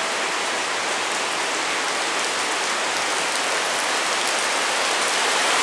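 Heavy rain falling steadily on wet paving stones, an even, unbroken hiss.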